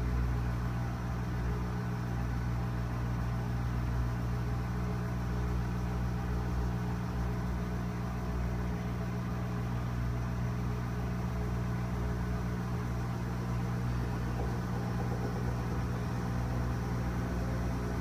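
GE front-loading washing machine spinning its drum in the spin cycle with a light load of three towels, running balanced: a steady motor hum that holds an even pitch.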